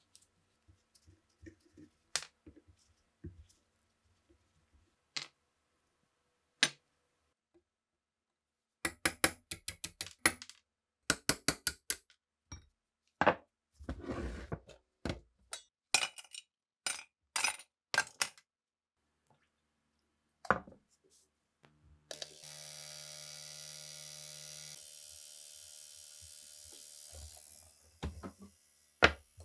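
Clicks, clinks and knocks of hand tools and steel rifle parts on a workbench, with a heavy bench vise scraped across the bench top about halfway through. Near the end a steady machine hum runs for about five seconds.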